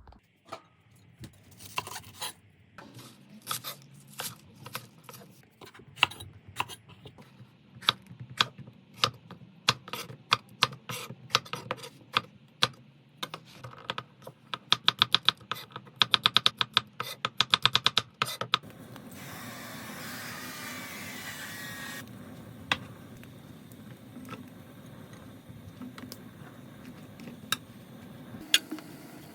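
Knife chopping vegetables on a cutting board: irregular single cuts, then a fast, even run of strokes about two-thirds of the way in. This is followed by a few seconds of hiss, then a low steady hum with occasional light knocks.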